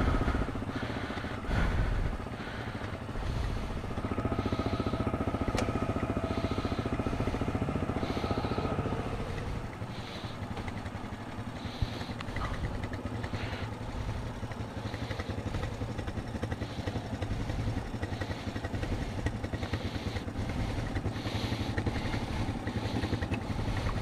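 ATV engine idling steadily while an electric winch whines for several seconds, from about four to nine seconds in, paying out its cable to free the stuck machine.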